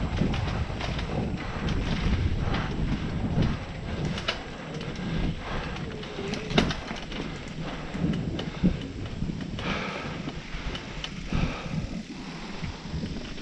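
Mountain bike being ridden fast down a dirt singletrack: tyres on dirt, the bike rattling and clicking over bumps, and wind on the microphone, heaviest in the first few seconds. Two sharper knocks come past the middle.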